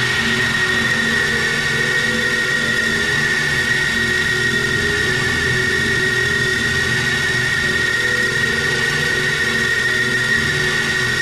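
Industrial drone music: a steady wall of sustained tones over a noisy hiss, with one bright high tone held above lower droning layers.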